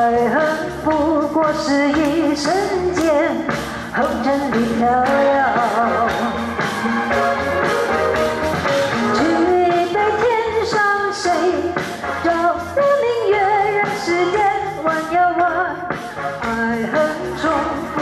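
Woman singing through a handheld microphone over instrumental music with a steady beat, her held notes wavering with vibrato.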